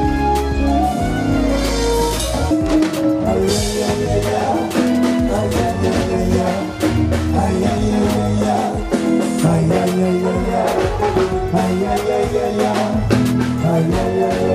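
Music with a drum beat and held, sustained chords.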